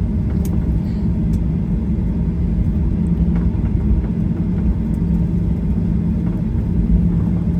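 Steady low rumble in the cabin of a Boeing 737-800 on the ground after landing, with a constant low hum running under it.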